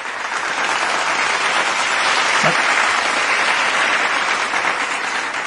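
Applause from many hands clapping, swelling in the first second and then holding steady.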